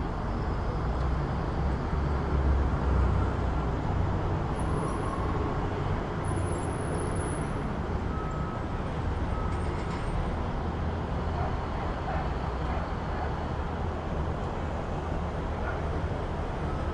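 City street traffic: a steady rumble of passing motor vehicles, swelling louder about two to three seconds in.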